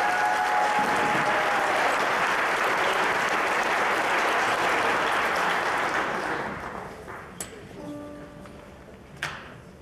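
Audience applauding, dying away about seven seconds in. Then a few quiet single instrument notes and a couple of sharp knocks.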